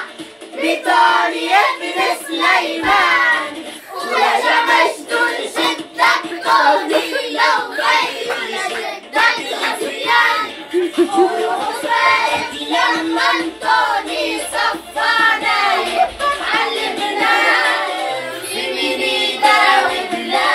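A group of boys singing a song together.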